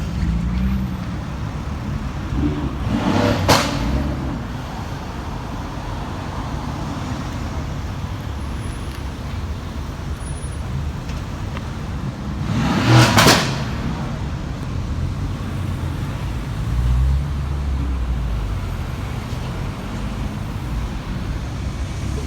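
Stage 2-tuned Mercedes-AMG GT S's twin-turbo V8 running with a low rumble amid road traffic, with two brief loud bursts, a few seconds in and again past the middle.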